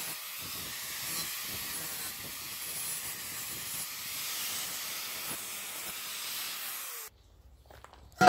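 Angle grinder with a thin cut-off disc cutting through stainless steel sheet: a steady hissing grind that cuts off suddenly about seven seconds in.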